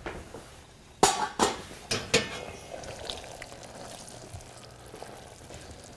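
Four sharp metal clanks of stainless steel pots and a saucepan being handled at a stovetop, between about one and two and a half seconds in, followed by a faint steady hiss.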